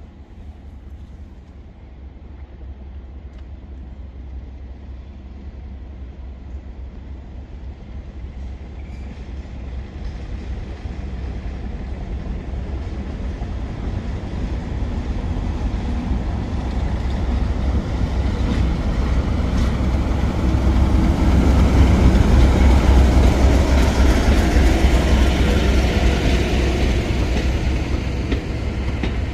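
Class 37 diesel-electric locomotive, with its English Electric V12 engine, running as it draws a train into the platform. Its rumble grows steadily louder, peaks about two-thirds of the way through as the locomotive passes, then eases a little as the coaches roll by.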